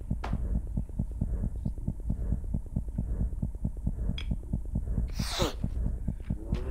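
Low, throbbing bass pulse of about five beats a second, a tense underscore, with a short whoosh about five seconds in.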